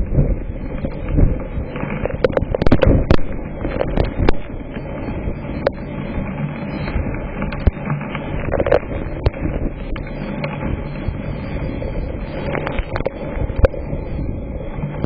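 Strong storm wind gusting over the microphone as a steady rushing rumble, with scattered sharp cracks of hailstones striking, a cluster of them about two to four seconds in.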